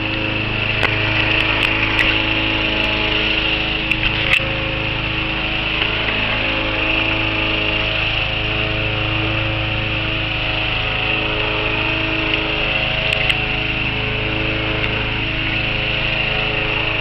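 Lawn mower engine running steadily, with a few light clicks over it.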